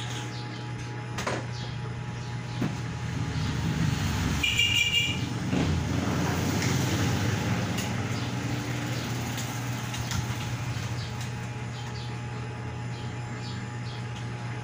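Steady low hum under road traffic noise, with a passing vehicle swelling up and fading away through the middle. A brief high tone sounds about four and a half seconds in.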